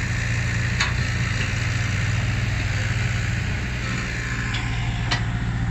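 Diesel engine of a soil-laden six-wheel dump truck running steadily as the truck drives off, its low hum easing about two-thirds of the way in. A few light clicks.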